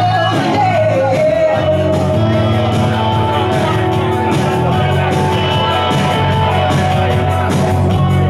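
Live amplified rock music from an electric guitar and an electric bass, with a man singing.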